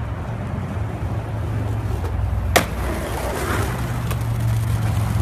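Skateboard deck and wheels hitting pavement with one sharp clack about halfway through, over a steady low hum.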